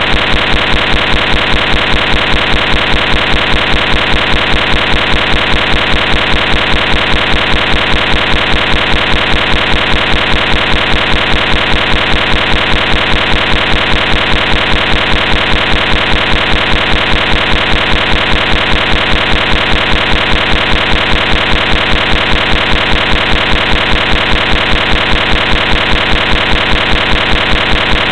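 Small electric motor running steadily, a loud buzz with a rapid, even pulse.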